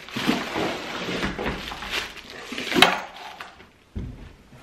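Cardboard box and plastic wrapping rustling as a plastic-wrapped metal boom arm is slid out of its box and laid on the table, with a sharp knock nearly three seconds in and a softer thump near the end.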